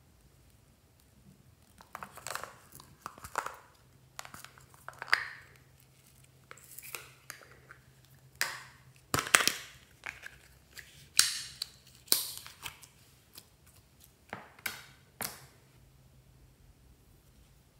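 Small plastic slime containers being handled and their lids pried and snapped open: a string of sharp plastic clicks, cracks and crinkles with short gaps between.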